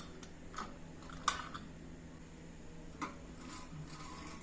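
A few light clicks and knocks from parts of a rusty vegetable slicer being handled, the sharpest a little over a second in and another about three seconds in, over a faint steady low hum.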